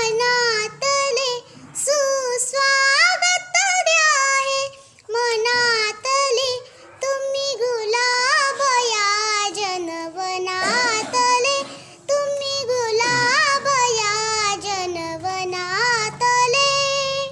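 A young girl singing a Marathi poem in a high voice, phrase after phrase, with wavering held notes and short breaks for breath.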